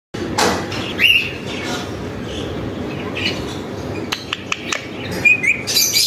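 Pet Indian ringneck parakeets giving short chirping calls, once about a second in and a couple more near the end, with a few sharp clicks in between.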